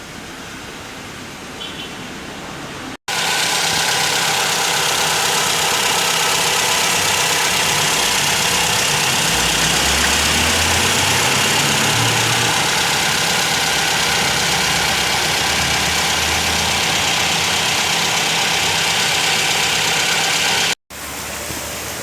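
Car engine idling with a loud, steady rushing whoosh over it. The sound switches on abruptly about three seconds in and cuts off shortly before the end.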